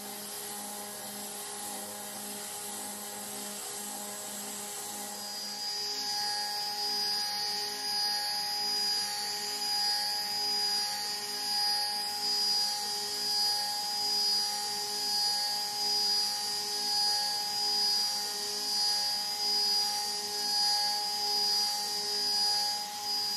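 CNC router spindle with a 1/4-inch two-flute upcut spiral end mill helically boring a bolt-head relief hole into a cast aluminum plate, a steady high spindle whine under the cutting noise. About six seconds in the cut gets louder with a higher tone, swelling and fading about once a second as the tool circles down around the hole.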